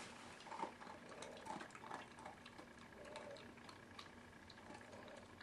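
Near silence: faint room tone with a few soft little clicks, mostly in the first two seconds.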